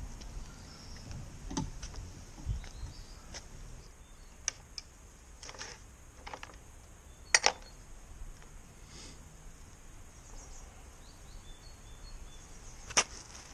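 Quiet outdoor ambience broken by a few scattered sharp clicks and light knocks from handling a bicycle rear wheel and a metal cassette lockring tool, the sharpest about seven seconds in and another near the end.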